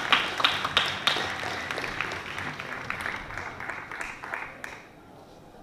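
Audience applauding, with many distinct claps that thin out and stop near the end.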